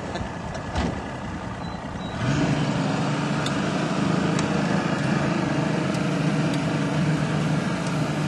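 Boat motor throttling up about two seconds in, then running steadily as the boat gets under way.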